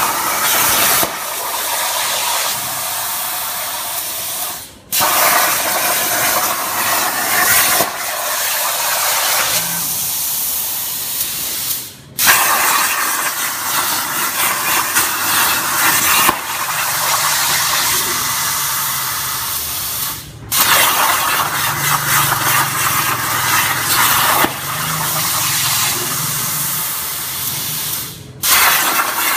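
CNC plasma cutter torch cutting steel plate: a loud, steady hiss of the plasma arc, breaking off suddenly four times, about every eight seconds.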